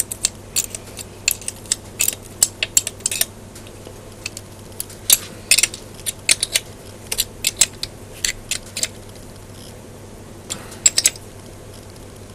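Steel spanners clicking and clinking against a nut and against each other as a small bolt is tightened by hand: clusters of sharp metallic clicks with short pauses, over a faint steady low hum.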